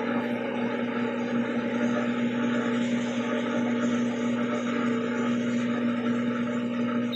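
Electrolux LAC13 washing machine's drain pump running with a loud, steady buzzing hum, then cutting off at the very end. The pump is making an abnormally loud noise.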